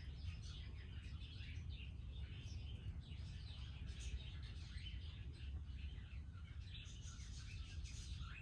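Birds chirping in many short, quick calls over a steady low rumble.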